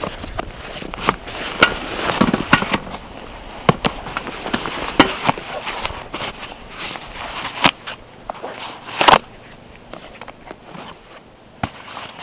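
Close handling of outdoor gear: a folding closed-cell foam sleeping pad is unstrapped from a backpack and pulled free, with sharp clicks of strap buckles and fabric, and foam rustling, over crackling of dry pine needles and leaves underfoot. The loudest moment is a short scrape about nine seconds in.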